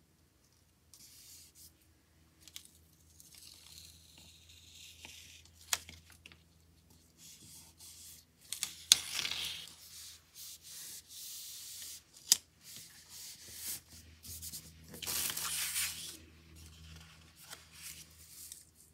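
Paper sticker being peeled from its backing and pressed and rubbed onto a paper planner page by hand: bursts of peeling, rubbing and paper rustling, with three sharp clicks.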